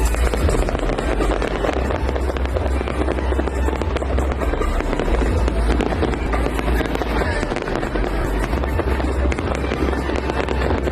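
Fireworks display going off in a dense, continuous barrage of crackles and bangs over a constant low rumble.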